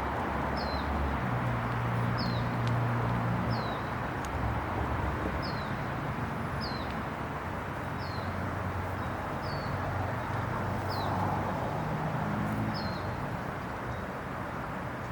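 A bird repeating a short, high, falling chirp about ten times, every one to two seconds, over steady outdoor background noise and a low hum.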